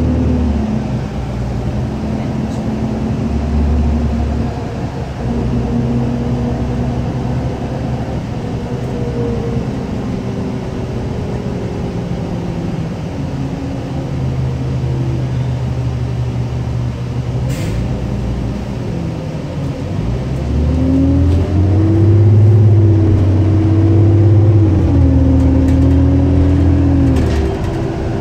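Diesel engine and drivetrain of a 2005 New Flyer D40LF transit bus, heard from inside the passenger cabin while the bus is under way. About twenty seconds in it gets louder as the bus accelerates, its pitch rising and then stepping down as it shifts gear.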